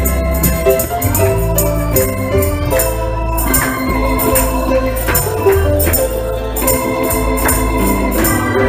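Instrumental gospel music: an organ plays held chords that change every second or so, over a steady percussion beat.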